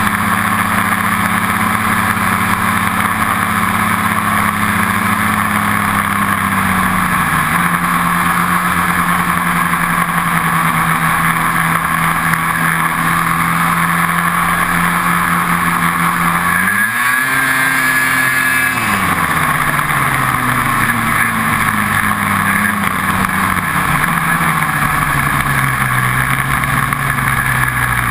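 Ski-Doo snowmobile engine running at a steady cruising speed. Its pitch steps down about seven seconds in, rises in a short rev and falls back a little past halfway, then sinks gradually near the end as the sled slows.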